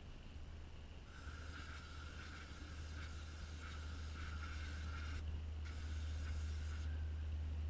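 Aerosol cleaner, such as brake or carburettor cleaner, hissing out of the can in a long spray of about four seconds, then a shorter one, to degrease the aluminium tubing before a turbo boot goes on. A steady low hum runs underneath.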